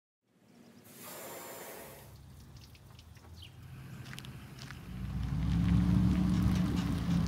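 Faint outdoor sound with a short rush of noise about a second in, then from about five seconds a steady engine idle: the Go Devil surface-drive mud motor running on its trailer.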